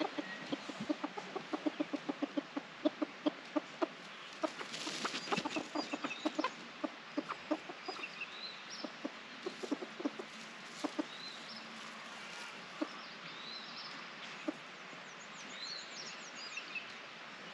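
Chickens clucking: a quick run of low clucks, about three a second, for the first six seconds or so, then scattered single clucks.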